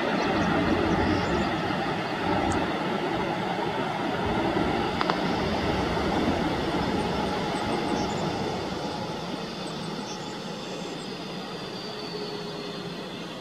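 Boeing 747-400 freighter's four jet engines rumbling as it rolls out along the runway after landing, fading steadily as it slows and draws away. A faint high whine falls slightly in pitch near the end.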